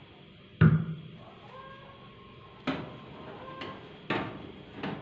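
Kirin electric toaster oven's glass door dropping open with a loud clunk about half a second in, then four lighter metal knocks and clicks as the wire rack and baking tin are slid out, with faint metallic ringing between them.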